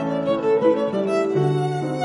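Instrumental background music: a melody of held notes that change pitch about every half second, over sustained lower notes.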